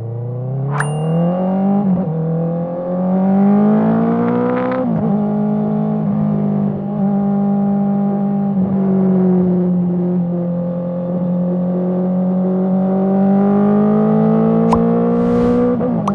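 Honda CBR650R inline-four through an Akrapovic exhaust, accelerating: the engine note rises, drops briefly at a quickshifter upshift about two seconds in, and rises again. It drops sharply at a second upshift about five seconds in, then holds a steady note and slowly climbs toward the end.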